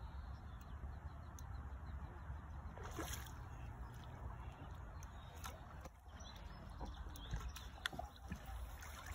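Hooked carp splashing and sloshing at the water's surface, a few small splashes over a steady low rumble.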